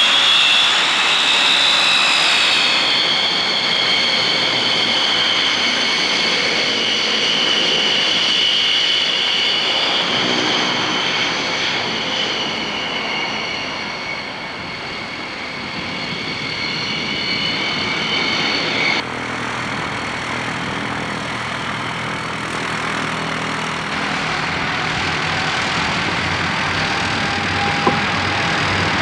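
Vickers Viscount's Rolls-Royce Dart turboprop engines whining steadily as the airliner taxis. The high-pitched whine dips slightly in pitch in the first few seconds as the aircraft passes, and the sound changes abruptly about two-thirds of the way through.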